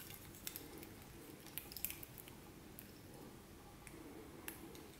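Faint, scattered clicks and light handling noises from small printer parts (motors and wiring) being turned over in the hands, a few sharp ticks in a cluster about two seconds in, over a low steady room background.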